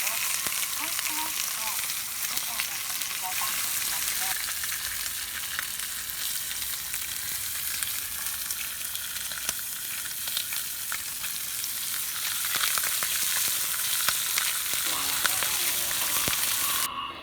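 Transistor radio hissing and crackling with static between stations, with a faint tuning whistle rising and falling in the middle. The static cuts off suddenly near the end.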